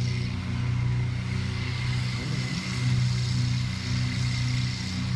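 Steady low engine hum with a faint high whine above it, pulsing slightly, and a brief wavering glide in pitch about two seconds in.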